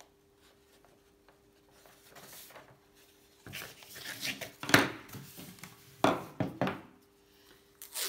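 Paper rustling and crinkling as a sheet of printing paper is wrapped by hand around a steel bicycle seat post, with a sharp knock a little under five seconds in.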